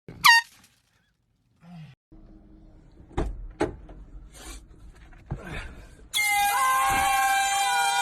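An air horn blasts in one steady, shrill two-second blast that starts about six seconds in, its pitch sagging as it cuts off. Before it there are a few soft knocks and thuds, and at the very start there is a brief high squeal that falls in pitch.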